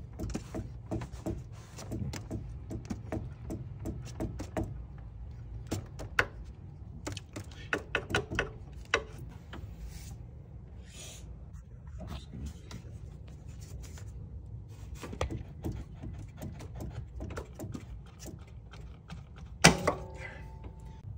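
Irregular clicks, taps and knocks of a long serpentine-belt tool and socket being worked out of a cramped engine bay, over a steady low hum. Near the end there is one sharp metallic clank that rings briefly.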